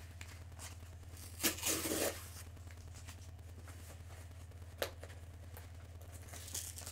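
A mailing package torn open by hand: one short rip about one and a half seconds in, then a couple of faint clicks and rustles, over a steady low hum.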